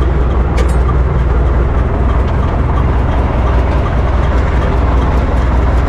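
UTB 650 tractor's diesel engine running steadily, a deep, even rumble.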